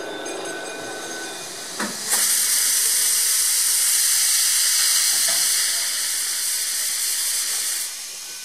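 Orenstein & Koppel narrow-gauge steam locomotive releasing steam low down beside its wheels: a softer hiss, a short knock about two seconds in, and then a loud, steady hiss of escaping steam that eases slightly near the end.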